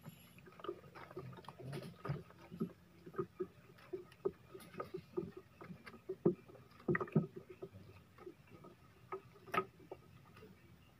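River water lapping and slapping against the hull of a moored wooden boat: irregular small knocks and clicks, a few of them louder.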